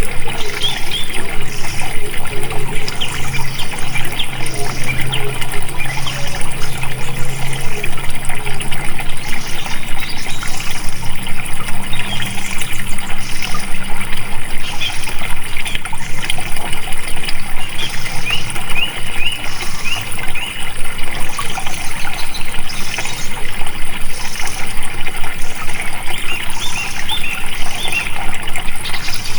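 Running water flowing and trickling steadily, with a continuous rushing hiss.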